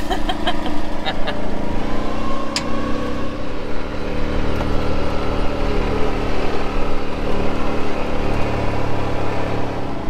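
Side-by-side utility vehicle's engine running as it drives off, with a whine that rises in the first few seconds as it speeds up, and a few light clicks and rattles early on.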